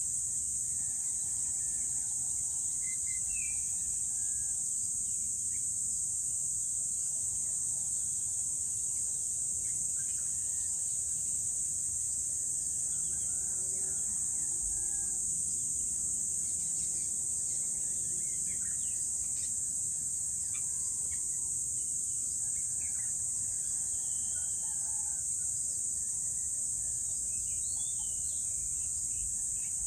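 Early-morning outdoor ambience: a steady high-pitched insect chorus, with scattered short bird chirps and calls over it.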